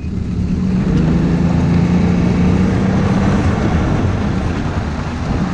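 Snowmobile engine running steadily under way, heard from the rider's seat, its hum holding a fairly even pitch over a rush of track and wind noise.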